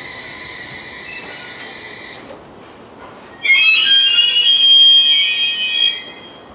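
JR East 701 series electric train braking to a stop at a platform. A steady, high, many-toned squeal fades out about two seconds in. From about three and a half seconds in, a much louder, shrill squeal lasts some two and a half seconds as the train halts.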